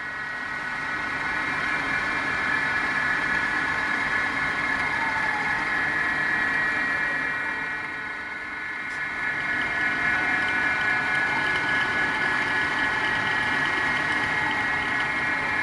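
Lagun FCM 152 milling machine running, a steady mechanical whine of several held tones over a low hum. The level dips briefly about halfway through, then returns to the same steady running.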